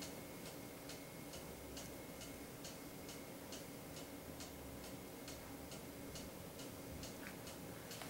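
Faint, even ticking, a little over two ticks a second, over a low steady hum.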